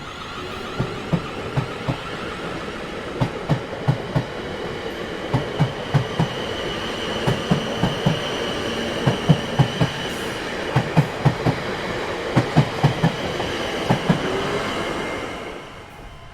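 Railway cars rolling past, their wheels clacking over rail joints in quick groups of knocks over a steady rolling rumble with a faint high whine. The sound fades out near the end.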